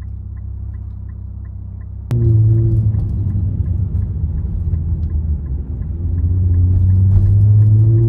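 Infiniti Q50 engine ticking over with a steady low hum and a light regular ticking, then about two seconds in it comes on sharply as the car pulls away, its note rising as it accelerates.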